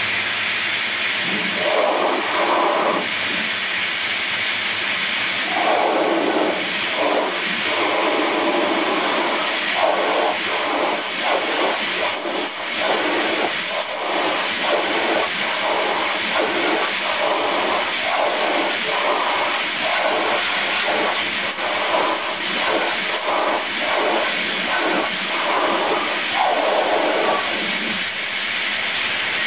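A Hoover vacuum cleaner running loud and steady, its air blown through a hose nozzle into the inlet of a model beam engine's cylinder to test whether the air pressure lifts the piston. From about six seconds in, the rush of air pulses unevenly.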